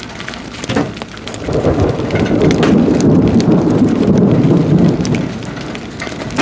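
Thunder rolling: a low rumble that builds about a second and a half in, holds for a couple of seconds and fades away. Scattered raindrop ticks sound throughout.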